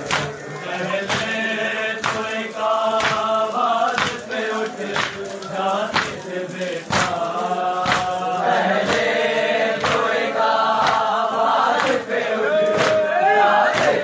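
A group of men chanting a Shia noha together while beating their chests in matam, the hand slaps landing in a steady beat about once every 0.8 seconds.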